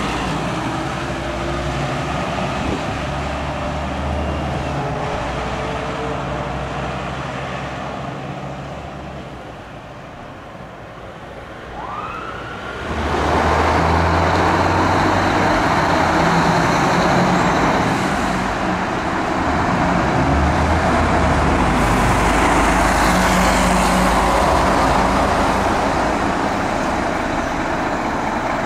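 Diesel engine of a fire engine running as it drives past and fades away. After a short lull, the diesel engines of two Scania fire engines start up loud and run steadily as they pull out of the station bays.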